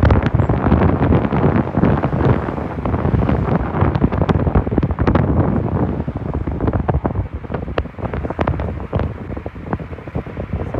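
Wind buffeting the microphone: a loud, gusting rumble with crackles, easing off a little in the second half.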